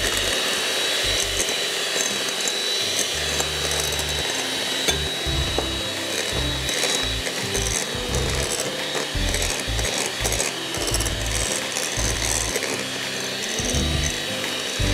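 Anex electric hand mixer running at a steady speed, its motor whining at one constant high pitch while the beaters clatter and scrape in a glass bowl, beating eggs and sugar into a cake batter.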